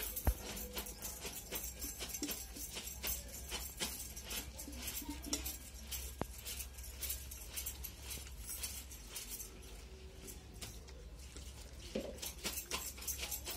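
A person eating by hand: many small crisp clicks of chewing and of fingers working against steel plates and bowls, with one low thump just after the start.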